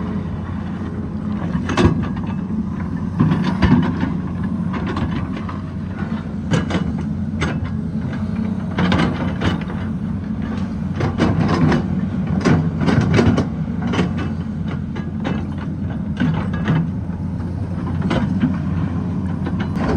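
Excavator's diesel engine running steadily under working load, with many sharp knocks, clanks and scrapes of the bucket against rock and stones, most frequent in the middle.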